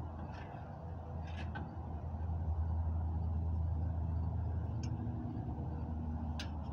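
Floor jack being worked under a car's rear axle, its steel parts giving a few sharp metallic clicks, over a low steady drone that swells in the middle and eases off.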